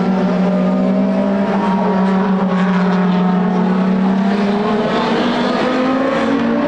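Classic DTM touring-car engines running hard on track, a steady held engine note whose pitch shifts near the end.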